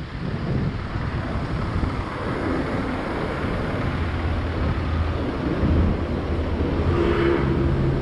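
City street traffic: cars running and passing. A low engine hum holds steady through the second half, and a vehicle passes more loudly near the end.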